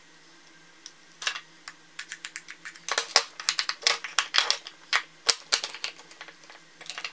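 Irregular metallic clicks and clatter as a hard drive's casing and loose parts are handled and a pocket-knife blade is worked against the case, starting about a second in.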